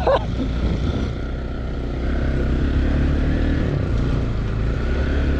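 Motorcycle engine running steadily while riding, a low rumble without breaks.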